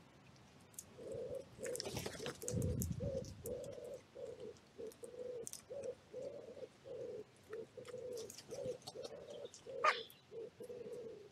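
Pigeon cooing steadily in repeated phrases of low hooting notes, each phrase a longer note followed by several shorter ones. A short burst of rustling comes about two seconds in, and a brief sharp rising call sounds near the end.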